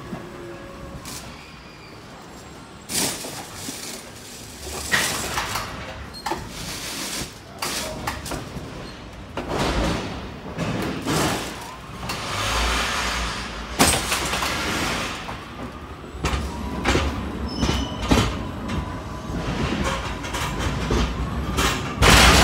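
Cab interior noise of a DAF XF 106 truck on the move: a low engine and road drone, with irregular surges of wind and road noise and short knocks and rattles throughout. The low drone grows stronger partway through.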